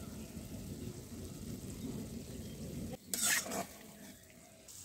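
Thick chicken curry sizzling and crackling in a pan, then, about three seconds in, a brief scrape of a metal spatula stirring it.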